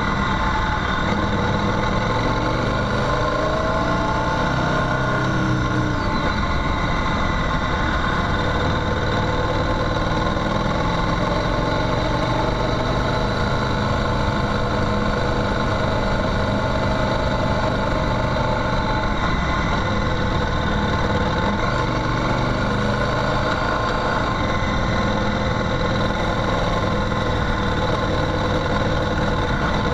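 Motorcycle engine running steadily, its pitch rising and falling slightly, as the bike is ridden over a gravel track.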